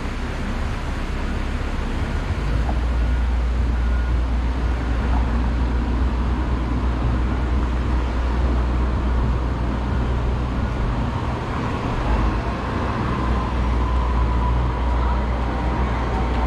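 Steady city street traffic noise, with a deep low rumble from about three seconds in. A faint, slowly falling whine comes in near the end.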